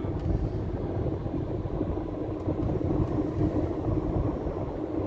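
Steady low rumble of a moving car heard from inside the cabin: engine and tyre noise while driving at an even speed.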